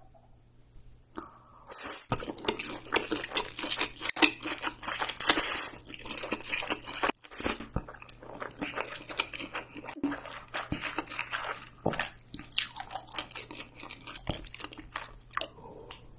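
A person chewing and crunching food close to the microphone, a dense run of crackling mouth sounds starting about a second in and continuing with brief pauses.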